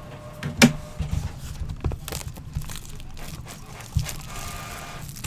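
Cellophane shrink wrap crinkling and tearing as it is pulled off a sealed Topps Inception trading card box. There is a sharp snap about half a second in and a few lighter clicks later.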